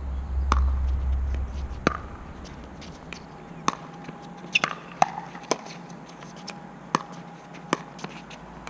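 Pickleball paddles striking a plastic ball in a doubles rally: sharp pops about once a second, with a quicker run of hits in the middle during volleys at the net.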